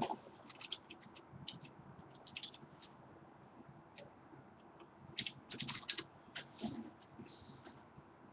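Computer keyboard typing in short, irregular bursts of key clicks, with the densest run about two thirds of the way through.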